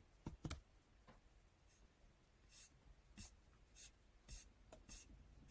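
Near silence: room tone with two faint clicks just after the start, then five faint, short scratchy strokes about every half second, from scrolling down a web page on a computer.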